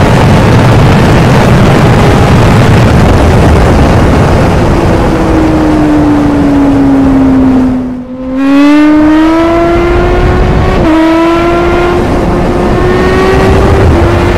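Suzuki sport bike engine at speed under heavy wind rush. The engine note sinks for a few seconds, dips out briefly just past halfway, then climbs again with a quick gear change about three quarters through.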